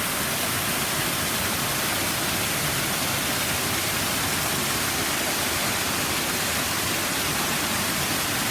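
Water running steadily over a small garden waterfall, a constant even splashing hiss.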